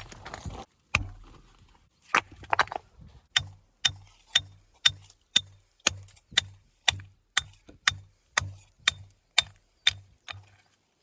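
Hammer blows in stone dressing, a few irregular knocks and then a steady run of about fifteen strikes, roughly two a second, each with a sharp ringing crack, stopping shortly before the end.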